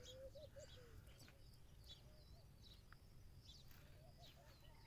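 Near silence, with faint birds chirping in the background.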